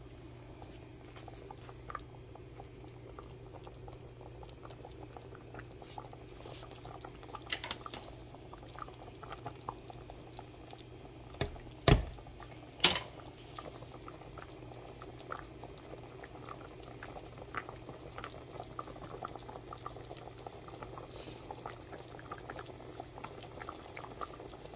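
Pan of chicken thighs in garlic gravy boiling, a steady fine crackle of bubbles popping. About twelve seconds in, a spatula stirs the pan, with two sharp knocks a second apart against it.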